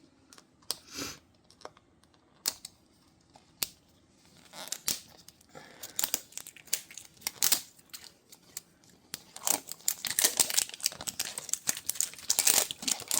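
Plastic shrink wrap on a Mini Brands capsule ball being handled and torn open: a few scattered clicks at first, then steady crinkling and tearing from about four seconds in, busiest near the end.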